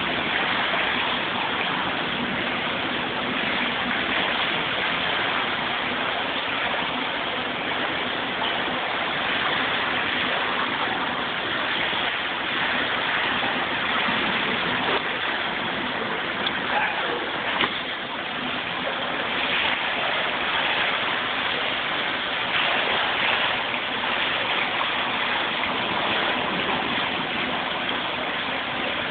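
Water splashing and churning as a swimmer strokes through a pool: a steady rushing noise, with a few louder splashes about two-thirds of the way through.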